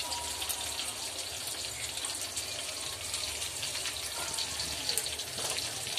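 Mustard seeds sizzling and crackling in hot oil in a steel pot, a steady hiss dotted with many small sharp pops.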